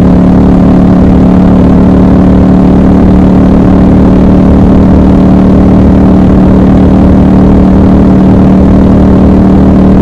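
Triumph Scrambler 1200 XC's 1200 cc parallel-twin engine and exhaust running at a steady cruising speed, holding one even pitch with no revving or gear changes.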